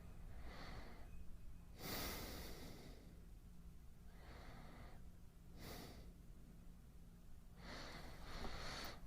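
A man breathing slowly and quietly, about five soft breaths in and out over a low steady hum.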